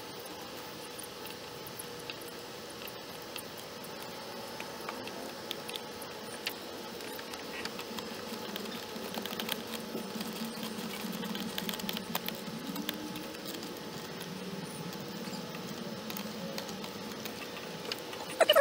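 Faint light clicks and scratches from hands handling a newly fitted throttle position sensor and its mounting bolts on the throttle body, busiest about halfway through.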